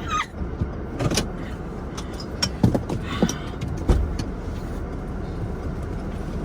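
Car stuck in snow with its engine running, a steady low rumble. Several short knocks and thumps come between about one and four seconds in.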